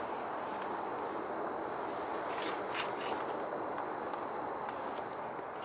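Outdoor ambience: a steady high-pitched insect trill over a constant rushing noise, with a few faint clicks a little past the middle.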